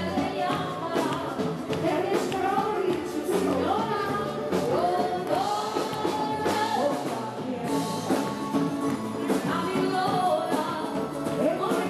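Live band playing a song: a woman singing over electric guitar, bass guitar and drums.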